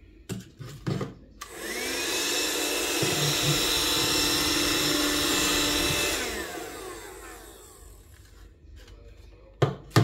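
Cordless handheld wet-and-dry vacuum cleaner switched on. Its motor spins up with a rising whine about a second and a half in, runs steadily for about four seconds, then winds down with a falling whine. A few clicks come before it, and two sharp knocks come near the end.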